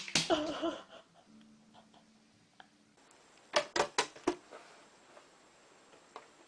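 Sharp knocks and taps: a cluster right at the start, then four quick ones about three and a half seconds in.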